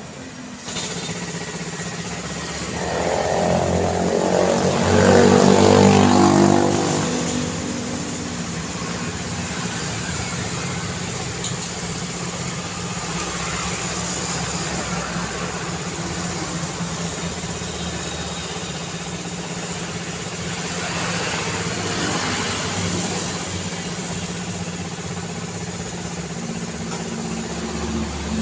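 Road traffic over a steady engine hum. A few seconds in, a vehicle passes close, loudest of all, its engine note falling as it goes by. A second, fainter vehicle passes about three-quarters of the way through.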